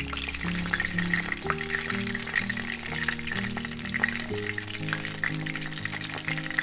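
Oil sizzling and crackling with many small irregular pops around a flour-tortilla quesadilla shallow-frying in a pan, over background music.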